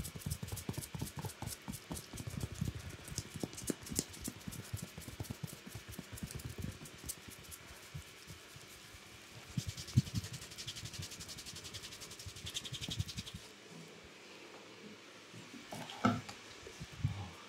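Fingers scrunching, rubbing and pulling through damp hair close to the microphone: a dense crackling rustle that thins out past the middle into a softer hissing rub, with a few bumps near the end.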